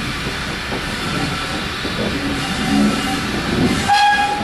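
Steam locomotive hissing steam steadily as it stands in the shed yard, with a short pitched tone starting about four seconds in.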